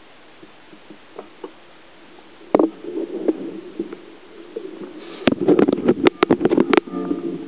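Water sloshing and bubbling in the bucket of a 2-litre bottle gravity bong, heard from underwater. A faint steady hiss runs until a knock about two and a half seconds in. Muffled burbling follows, then a fast run of sharp clicks and louder churning over the last two seconds.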